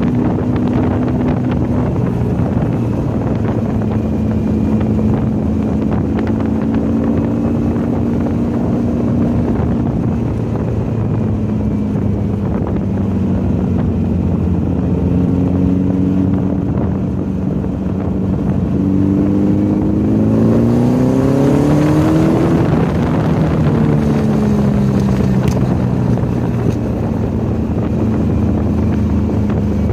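Volkswagen's engine running hard on a racetrack lap, its pitch wandering up and down for most of the stretch. Near the end it climbs steadily for a few seconds as the car accelerates, then falls away quickly.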